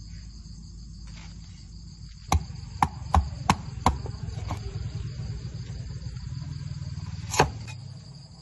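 Heavy cleaver chopping on a thick wooden chopping block: about five sharp chops in quick succession a couple of seconds in, then lighter knocks and one loud chop near the end. Crickets chirr steadily throughout.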